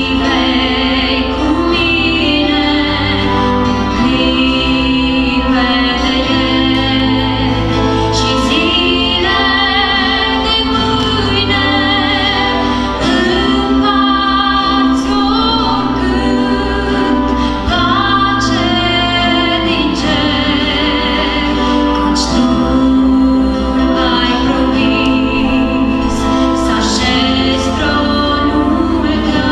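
A Christian worship song sung by a small vocal group, women's voices to the fore, accompanied by acoustic guitar, bass guitar and keyboard. Held, vibrato-rich sung notes run over a steady bass line.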